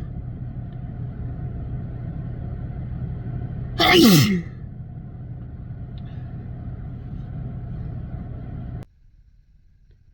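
One person's sneeze about four seconds in, a short loud burst whose voice falls in pitch, over a steady low rumble and hum. The background cuts off suddenly near the end.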